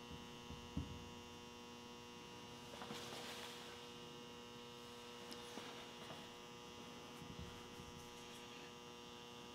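A steady electrical hum with several even tones. A faint click comes just under a second in, and there are a few soft rustles and ticks.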